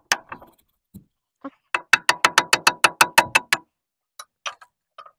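Hammer tapping on steel at the dozer's hydraulic cylinder rod end: a few separate taps, then a fast even run of about seven strikes a second for roughly two seconds, each with a short metallic ring.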